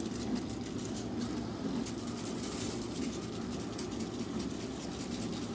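Dry barbecue rub being shaken from a plastic shaker bottle onto a rack of ribs: a run of quick, irregular rattling ticks over a steady low hum.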